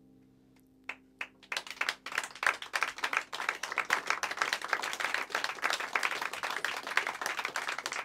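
Audience applauding at the end of a song: a few separate claps about a second in swell quickly into full applause, which begins to thin out near the end. The last piano chord is still ringing underneath and dies away in the first couple of seconds.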